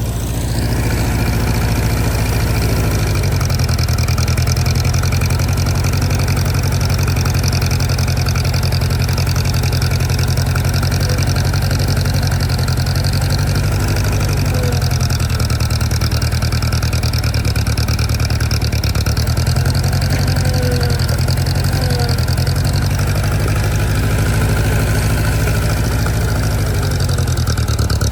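Vehicle engine running steadily with a deep, low drone, growing louder about half a second in and then holding even.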